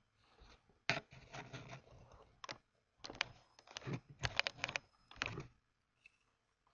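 Computer keyboard typing: irregular bursts of sharp key clicks, with a quick run of about half a dozen keystrokes around four seconds in.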